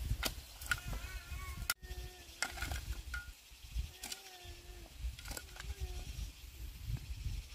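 Farm animals bleating, several short calls with a wavering pitch, over a low rumble and a few sharp clicks.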